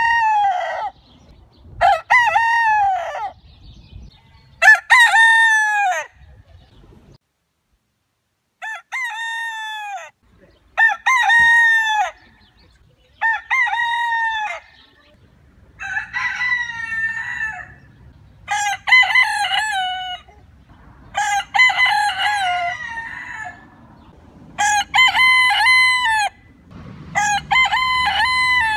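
A rooster crowing over and over, about eleven crows each a second or so long, one every two to three seconds, each falling in pitch at its tail.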